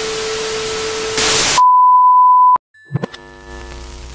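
Intro sound effects: television static hiss with a low steady hum underneath, then a steady high beep about a second long that cuts off with a click. After a short silence, a few glitchy hits lead into a sustained electronic drone over a low rumble.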